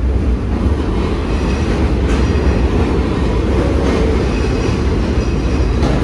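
R160B New York City subway train pulling out of the station past the platform: a heavy, steady rumble of steel wheels on rail with a few sharp clacks from rail joints.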